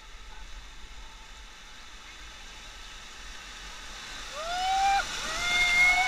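River rapids rushing around an inflatable raft. From about four seconds in, as the raft runs into white water, several people shout and whoop over each other and the water grows louder.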